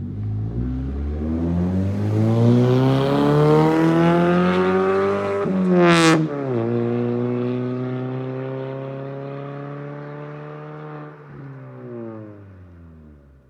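Mazda CX-3 20S's 2.0-litre four-cylinder petrol engine through a straight-through dual exhaust with no silencers, pulling away and revving up in first gear. About six seconds in it shifts to second: the pitch drops, with a brief sharp noise at the change. It then runs on in second, fading with the pitch slowly falling, and dies away near the end.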